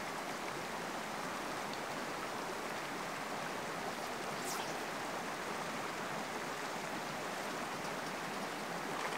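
Steady rushing of flowing stream water, an even hiss-like wash with no change in level.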